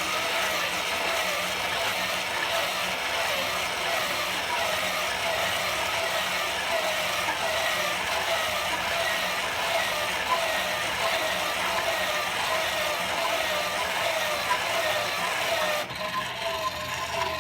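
PCB drilling machine running its automatic cycle: a steady mechanical whine whose pitch wavers up and down over and over. The sound changes abruptly about sixteen seconds in.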